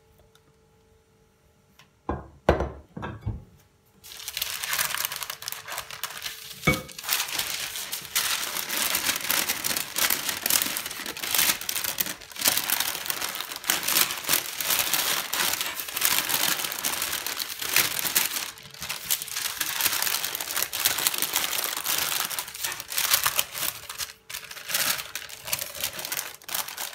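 Sheet of baking (parchment) paper crinkling and rustling as it is lifted and folded by hand around a mound of chocolate-biscuit mixture, continuous from about four seconds in. A few knocks just before it starts, and one more a few seconds later.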